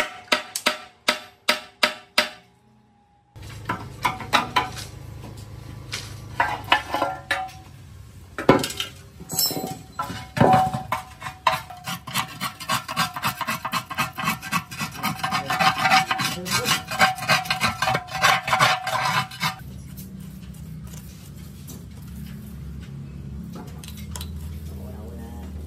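A quick run of hammer blows on a rusty sheet-steel engine tank, about two or three a second, each ringing. After a short break, a metal rod scrapes and prods rust inside the hollow steel tank, with many clicks and a steady ringing from the shell; near the end it gives way to softer scraping as packed rust flakes are dug out of an opening in the engine block.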